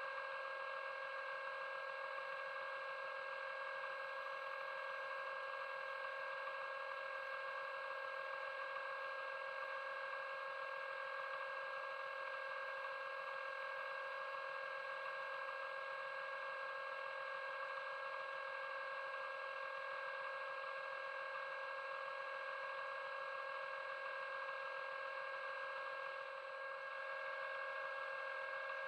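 Underwater scooter (diver propulsion vehicle) motor whining steadily underwater, a constant pitch over a hiss, dipping briefly near the end.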